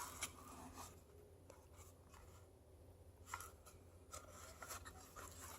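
Near silence with a few faint clicks and rubbing from a plastic battery pack and charger being handled.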